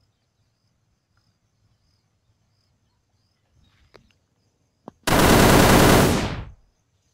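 A loud burst of rapid machine-gun fire, a sound effect, starting about five seconds in and lasting about a second and a half before tailing off.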